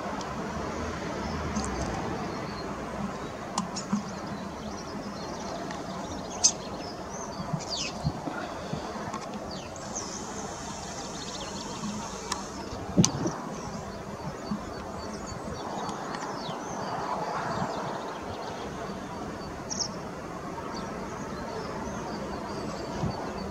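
Outdoor ambience: a steady background hum with scattered short, high chirps from small birds and a few sharp clicks, the loudest about 13 seconds in.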